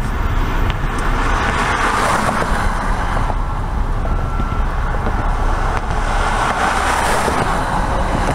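Steady road and tyre noise with a low rumble, heard from inside a moving car.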